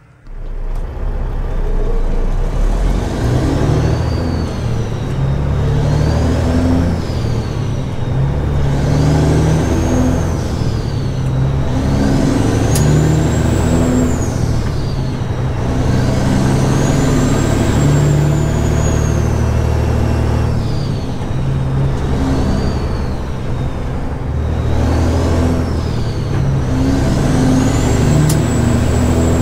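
Caterpillar 6NZ diesel in a straight-piped semi truck, pulling through the gears and heard from inside the cab. A turbo whistle rises and falls again and again over the engine, once for each pull.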